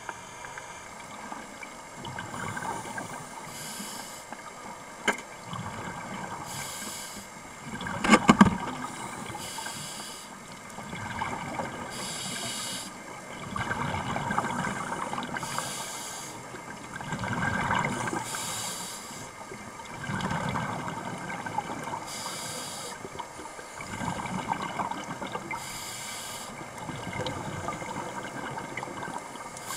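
Scuba diver breathing underwater through a regulator: a short hiss with each breath in, then a swell of rumbling exhaled bubbles, repeating every few seconds. A sharp knock sounds about eight seconds in.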